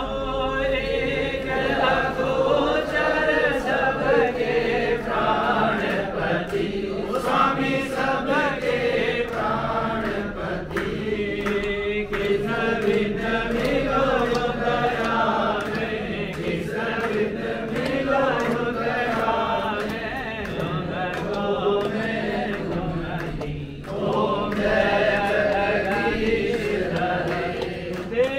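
A group of voices singing a devotional aarti hymn together during a Lakshmi puja, with scattered sharp clicks.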